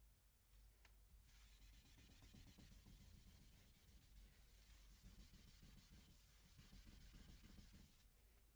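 Faint rubbing of a wipe across a smooth white board, a soft scrubbing hiss that starts about a second in and stops near the end.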